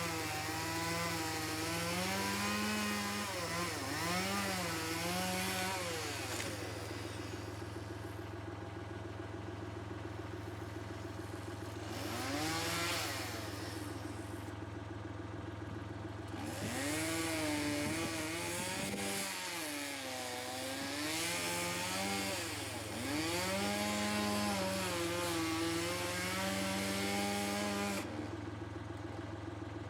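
Two-stroke chainsaw running and cutting, its engine pitch repeatedly rising and falling as it bogs under load and revs free. A steady low engine hum runs underneath.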